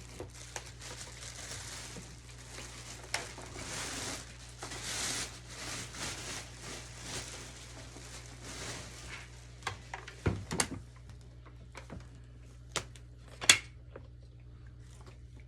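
Rustling of cardboard and packaging being handled while vacuum cleaner parts are unpacked. In the second half this gives way to several separate clicks and knocks of plastic parts being handled. The sharpest click comes shortly before the end.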